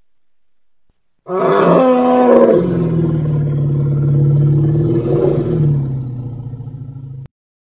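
Imagined call of an American mastodon: a loud cry begins about a second in, bends down in pitch, then settles into a long, low, steady call that cuts off suddenly near the end.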